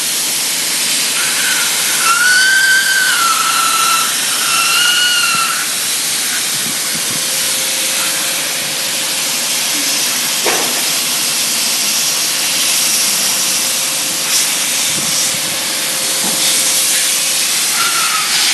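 Steady loud hiss of a hot-air PVC seam-welding machine blowing hot air as the red PVC panels of an inflatable boat are fed through its rollers. A wavering high tone rises and falls a few times in the first few seconds.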